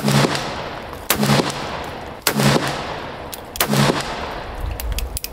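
Four shots from a Colt Cattleman black-powder revolver with a 5½-inch barrel, loaded with 24 grains of Swiss 3F powder, fired about a second apart. Each report leaves a long echoing tail that fades before the next shot.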